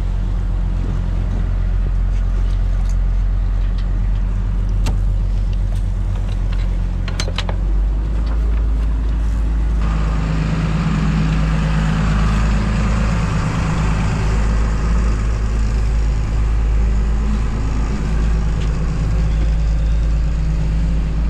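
Fishing boat's engine running steadily under way, a low drone whose pitch shifts about seven seconds in, with a few sharp knocks in the first half and a rushing hiss added from about ten seconds in.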